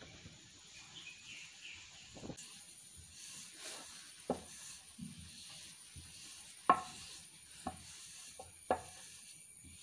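Wooden rolling pin rolling a filled dough round flat on a floured stone slab: a soft rub with several sharp knocks of the pin against the stone, the loudest about two-thirds of the way through.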